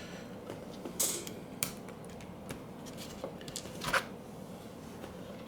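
A few small, sharp clicks and taps of a digital camera's plastic parts being handled and pressed back together. The loudest click comes near the end.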